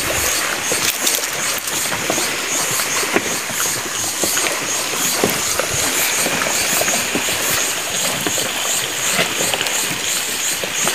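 Pieces of tucunaré (peacock bass) frying in hot oil in a pan over a wood fire: steady sizzling with many small pops and crackles.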